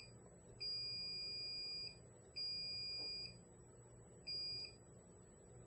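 Continuity buzzer beeping three times with a steady high tone as a pacemaker's tiny reed switch closes under a hard drive magnet. The first two beeps last about a second each and the last, near the end, is short.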